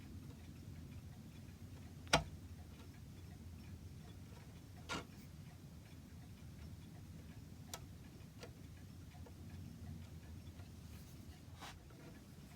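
A few light, irregularly spaced knocks and clicks, the sharpest about two seconds in, over a faint steady low hum: small wooden pieces and tools being handled on a workbench.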